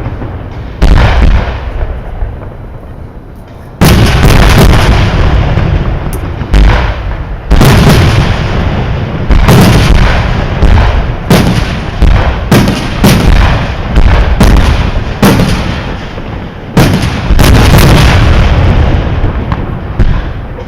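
Fireworks display: loud aerial shell bursts, each bang trailing off into an echo, with a gap after the first bang and then a rapid run of bangs close together from about four seconds in.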